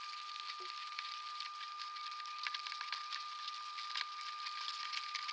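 Steady hiss from a live wildlife camera's microphone, with a constant faint high tone and scattered small clicks and crackles.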